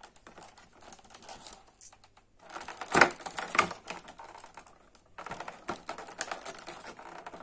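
Fingers and fingernail picking, scratching and pressing at a perforated door of a cardboard advent calendar, a stiff door that is hard to open. Small clicks and scrapes throughout, with two louder knocks about three seconds in.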